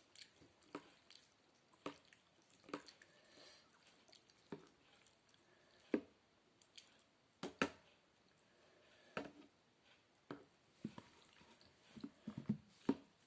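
A person eating noodle soup close to the microphone: faint wet chewing and slurping, with short separate mouth and spoon sounds every second or so.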